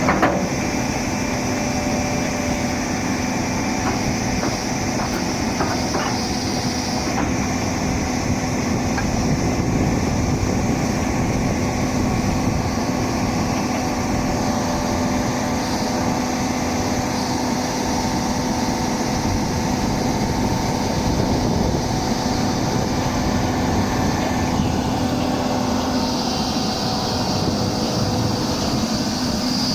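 Doosan 300LC-V excavator's diesel engine running steadily with a constant-pitched hum.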